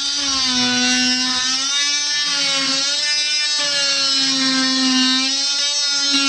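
DeWalt DWE315 corded oscillating multi-tool running with its blade plunge-cutting half-inch plywood: a steady high whine whose pitch wavers slightly as the blade bites. Near the very end it starts to drop in pitch as the tool is switched off.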